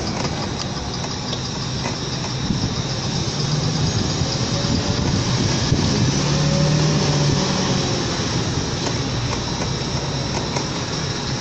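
A motor vehicle engine running steadily, swelling louder for a few seconds in the middle and then easing off.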